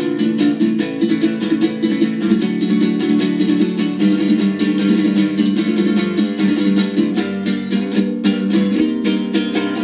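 A son jarocho string trio playing together: electric requinto jarocho, jarana and leona, in a dense run of quick plucked and strummed notes.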